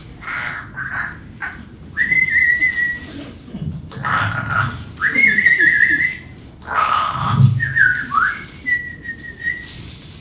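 A person whistling into a microphone: several held high notes at about the same pitch, some wavering, one dipping and sliding back up near the end, with short hissing noises between the notes.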